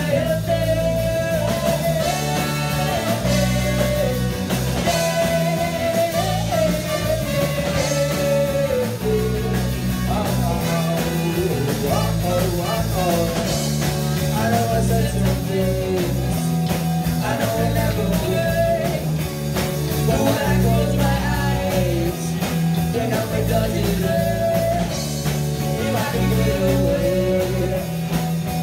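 Live rock band playing: electric guitars, bass and drum kit in a steady groove, with a wavering lead melody over it.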